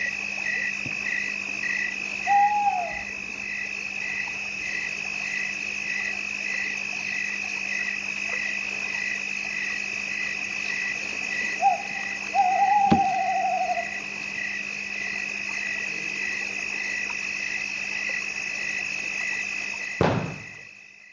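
Night ambience sound effect: steady insect chirping at about two chirps a second, with an owl hooting twice, the second hoot long and wavering. It ends with a thump and fades out near the end.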